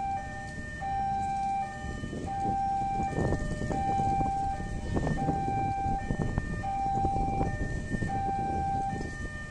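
Railway level-crossing warning alarm: a sequence of electronic tones repeating about once a second. Underneath, the engines of the cars and motorcycles queued at the lowered barriers run and rise now and then.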